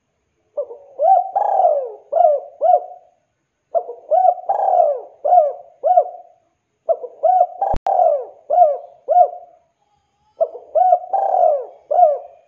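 Spotted dove (tekukur) cooing: four repeated phrases of several coo notes each, with short pauses between them. A single sharp click comes partway through.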